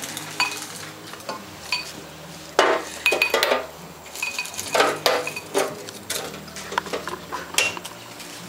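Light metallic clinks ringing out several times, mixed with louder rustling and handling noises.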